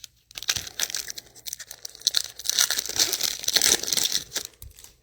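A foil trading-card pack wrapper being torn open and crinkled, a dense crackling that swells and is loudest past the middle, then stops just before the end.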